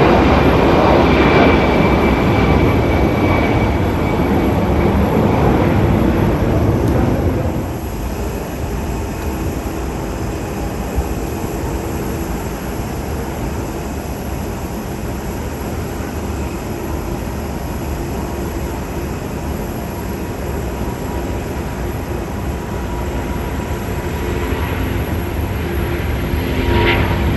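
Airliner jet engines: an Airbus A330 runs loud at first, then the sound drops suddenly to the quieter, steady jet-engine hum of an Airbus A350, which swells slightly near the end.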